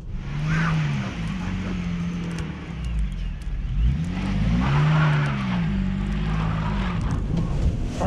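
Ford Transit delivery van's engine revving up and down twice, the second rev bigger, with a rush of noise as the wheels spin on the snow and the van struggles for grip.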